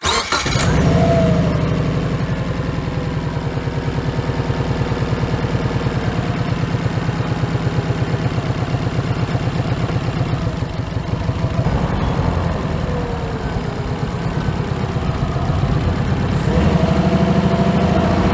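Subaru Liberty GT's turbocharged flat-four engine idling with a steady, even pulse, rising in pitch and loudness near the end as it is revved.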